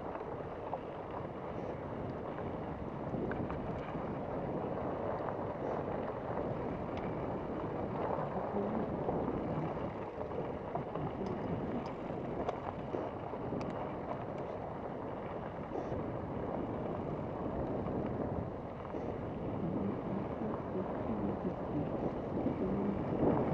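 Steady rushing noise of a mountain bike rolling along dirt singletrack: wind on the camera microphone mixed with tyres running over dirt and small rocks, with a few faint clicks and rattles from the bike.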